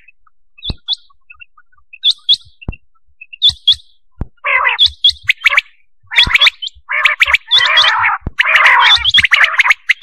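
Recorded quail (batair) calls of the kind played as a lure for quail hunting. Short, sharp high notes come in pairs during the first few seconds. From about halfway in, a dense run of rapid calling follows, with a few low clicks scattered through.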